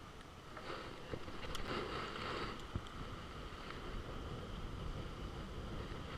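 Wind buffeting the microphone: a steady low rumble with hiss, growing louder about half a second in.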